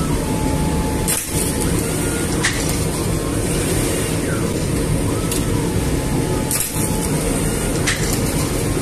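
Automated bread-baking line running: oven and conveyor machinery with a loud, steady rumble. Sharp clicks sound now and then, about five times.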